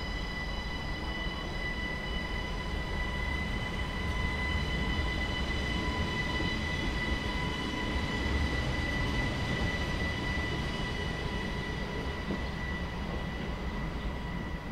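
SNCB AM08 Desiro electric multiple unit running past on the far track: a low rail rumble under a steady high electric whine made of several tones together.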